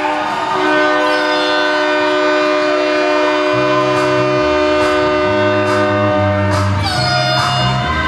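Music: held chords throughout, with a bass line stepping between notes coming in about halfway and a few short, sharp hits in the second half.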